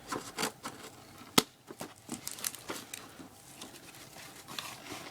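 Beyblade toy packaging being opened by hand: irregular crinkling and tearing of plastic and cardboard, with one sharp snap about a second and a half in.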